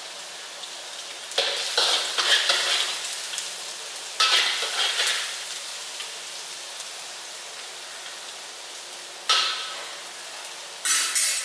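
Chopped garlic sizzling in a spoonful of hot cooking oil in a wok while a metal spatula stirs it. The sizzle flares up sharply four times as it is stirred, then settles back to a steady hiss.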